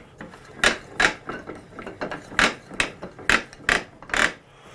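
Pattern maker's vise being cranked, its metal screw and jaws giving a series of sharp, uneven clicks and clunks, about two a second.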